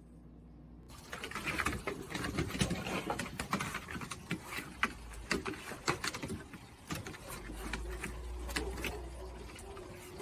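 A dog chewing a sour apple, its mouth making rapid, irregular clicks and smacks that start about a second in after a faint hum.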